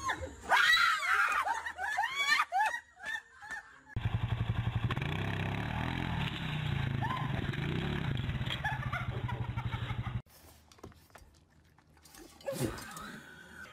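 Several young women laughing for the first few seconds, then an ATV engine running with an even pulsing beat, which stops abruptly about ten seconds in.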